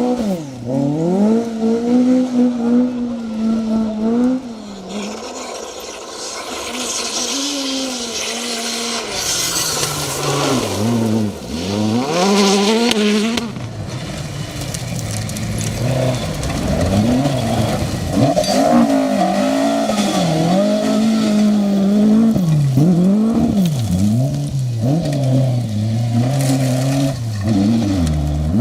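Rally car engines at full throttle, pitch repeatedly climbing then dropping with gear changes and lifts as the cars pass. A loud hiss of tyre noise joins in for several seconds around the middle.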